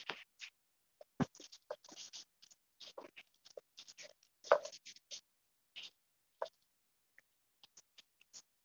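Choppy, broken-up audio over an unstable video-call connection: short scratchy, clicky fragments of handling noise cut apart by gaps of dead silence as the connection drops out.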